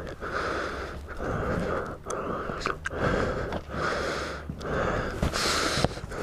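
Rapid, heavy breathing close to a helmet-mounted microphone, one breath in or out about every second: a motorcyclist out of breath just after a crash.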